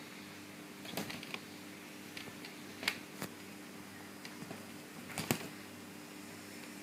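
A cat's paws and claws moving over a woven fabric couch cushion: a few short bursts of light clicking and scratching, the sharpest about five seconds in, over a faint steady hum.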